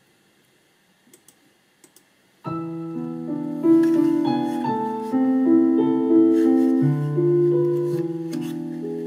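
A keyboard accompaniment starts abruptly about two and a half seconds in, playing held chords over a moving bass line. Before it there are only a few faint clicks.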